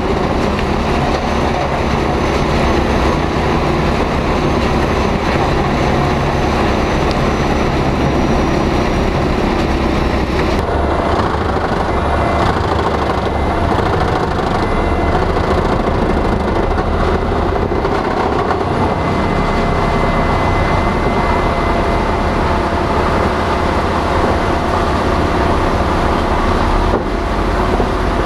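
Large drum wood chipper and its diesel engine running steadily under load. About ten seconds in, the higher hiss drops off abruptly and the heavy running continues.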